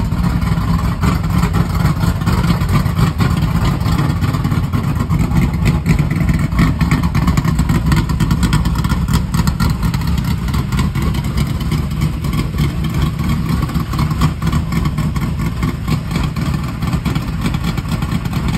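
Dirt-track race car V8 running loud and steady through open headers, then shut off abruptly near the end.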